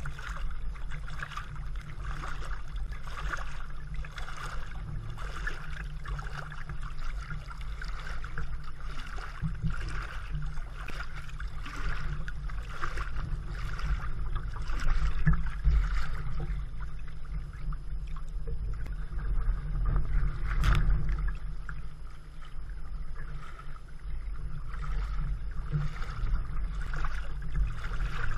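Water splashing and lapping against a moving kayak, with repeated short splashes over a steady low rumble on a camera mounted near the waterline.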